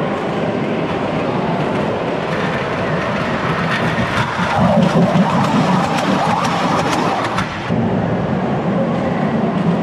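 Ride-on Thomas the Tank Engine train rolling over the camera on steel track: a louder rumble with sharp clicks from its wheels on the rails for about three seconds in the middle as it passes overhead, which cuts off suddenly. Steady background noise throughout.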